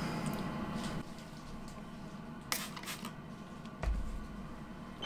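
A few light mechanical clicks and a dull thump just under four seconds in, from the controls of a stopped metal lathe being worked by hand, over a faint low hum.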